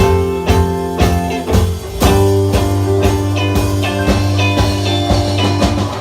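Live rock band playing an instrumental passage: guitar phrases over held bass notes and a drum kit keeping a steady beat.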